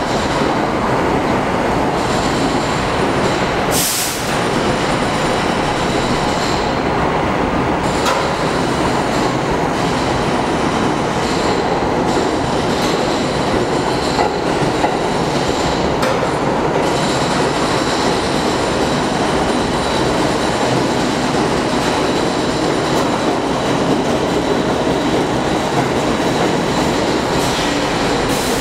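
R46 New York City subway train pulling into an underground station and running past with a steady, loud rumble of wheels on rail. A faint high wheel squeal runs through it, and a few sharp clicks come roughly every four seconds.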